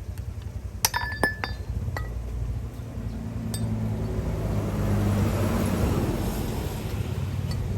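A few sharp metal clinks of tools or parts striking each other, ringing briefly, about a second in, over a steady low engine rumble that grows louder in the middle.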